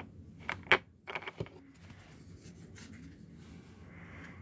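Paintbrush dabbing and stroking paint onto a plastic painting palette: a handful of sharp taps and scrapes in the first second and a half, then softer, fainter brush strokes.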